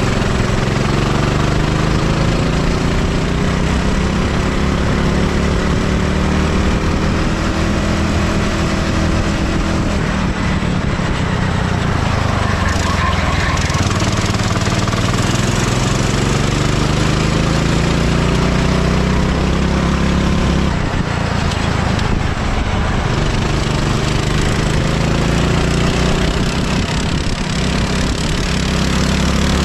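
Go-kart engine at full racing pace, heard from onboard: its pitch climbs steadily as it accelerates, then drops sharply twice as it brakes for corners before climbing again, over a steady rush of noise.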